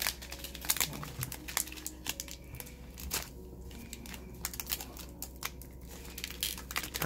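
Foil wrapper of a Panini Mosaic basketball card pack crinkling and tearing as it is peeled open by hand: a run of irregular sharp crackles.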